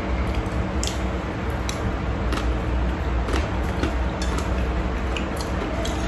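Metal spoon and fork clicking and scraping against a plate of fried noodles: scattered light clicks, irregular, about one or two a second, over a steady low hum.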